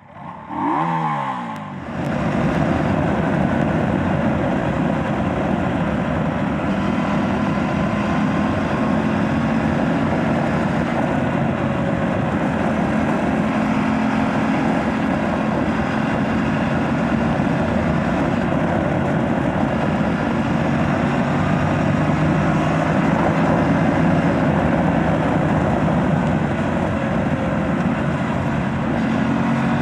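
Aprilia RS 457's parallel-twin engine running at riding speed through its stock exhaust, under heavy wind rush on the microphone, its pitch rising and falling a little with the throttle. It comes in over the first two seconds, then holds steady.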